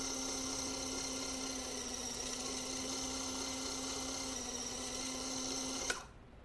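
Small electric suction pump running steadily, a hum with a high whine, drawing clean water through an inkjet printer head's nozzles to flush them; it is switched off with a click near the end.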